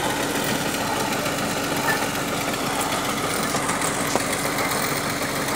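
Truck-mounted borewell drilling rig's engine running steadily at a constant speed, with a faint click about four seconds in.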